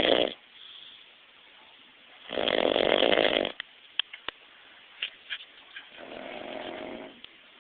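A sleeping man snoring loudly: one snore trails off just after the start, a second loud snore comes about two seconds in and lasts about a second, then a few short clicks and a softer snore near the end.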